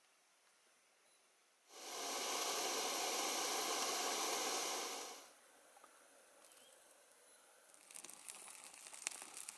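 A loud, steady hiss starts about two seconds in and stops after about three and a half seconds. Near the end comes a quick run of crackly rustling and crinkling, like packaging being handled.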